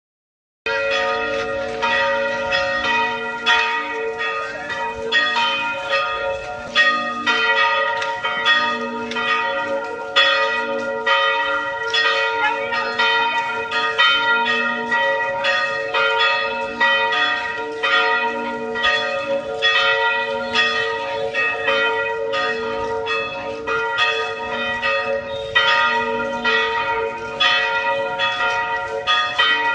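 Church bells pealing: several bells struck in steady succession, about two strokes a second, their tones ringing on and overlapping.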